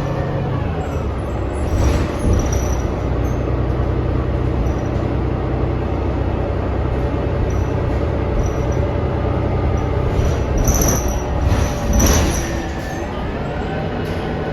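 Interior of a New Flyer XD40 diesel transit bus in motion: the engine and drivetrain run steadily, with a whine that rises in pitch near the end. A few brief knocks or rattles come about two seconds in and again around eleven and twelve seconds. The whine and rattles are part of the bus's unusual, loud running noise, whose cause is unknown.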